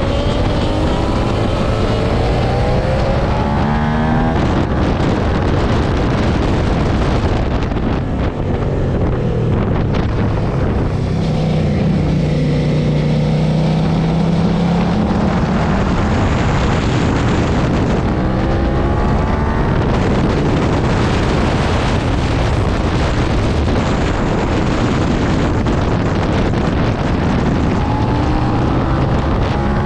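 Suzuki SV650's 645 cc V-twin engine under way, its revs climbing several times as the bike accelerates and held steadier for a few seconds near the middle. Heavy wind noise on the microphone runs under the engine.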